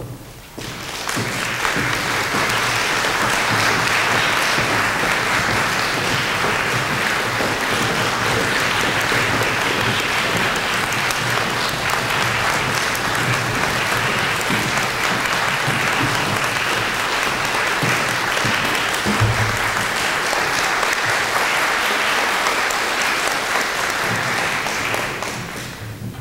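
Audience applauding steadily as the string ensemble takes the stage, starting about a second in and dying away near the end.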